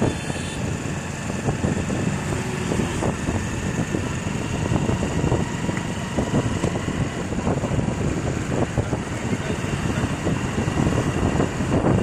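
Steady vehicle noise: engines running with road noise, without a break.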